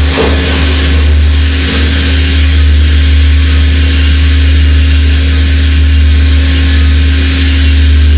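Hydraulic seismic test rig running: a loud, steady low hum with a constant higher tone over an even hiss.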